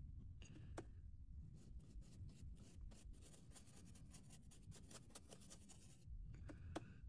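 Faint, scratchy rubbing of a paintbrush's bristles working pastel chalk powder into scored card, in many quick short strokes.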